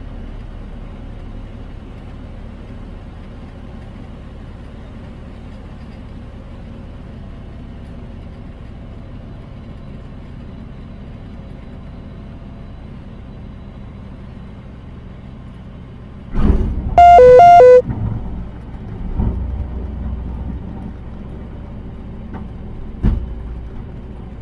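Rotax 914 engine of a Bristell light-sport aircraft running at low power through landing and rollout, heard in the cockpit as a steady low rumble. About 16 seconds in there is a loud burst of thumps and then a brief, very loud beeping on two alternating tones, followed by a few more knocks and a sharp click.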